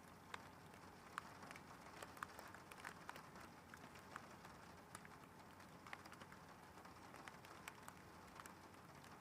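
Faint rain: scattered raindrops ticking irregularly on a hard surface over a soft steady hiss.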